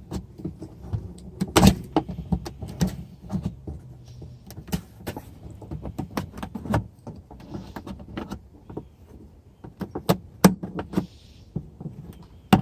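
Irregular sharp clicks, taps and knocks of hand work inside a Jeep Wrangler's rear door, pulling apart parts held together by the door's seal.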